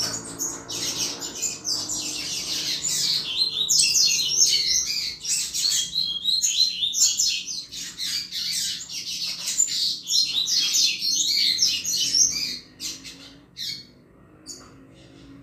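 Double-collared seedeater (coleiro) singing a fast, continuous run of high chirping notes, the 'canto chuva' song. About twelve seconds in it breaks into a few scattered notes, and it stops near the end.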